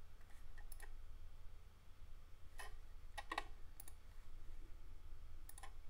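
About six scattered, short clicks from working a computer's mouse and keyboard, over a low steady hum.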